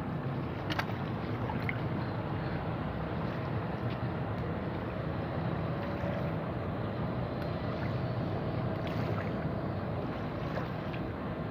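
Steady low rumble of a boat motor on the river, with a small click about a second in.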